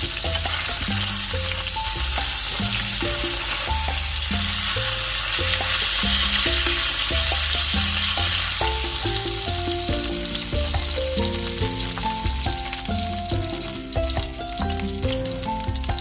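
Chicken pieces frying in hot oil, a steady, dense sizzle, with background music playing under it.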